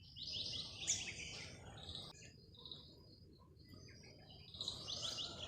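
A songbird singing two short phrases of quick, high chirping notes about four seconds apart, over faint background noise.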